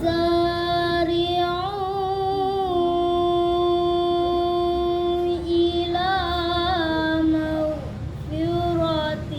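A young girl's voice reciting the Qur'an in the melodic qira'ah style. She holds one long note with wavering ornaments for about five seconds, then sings two shorter ornamented phrases.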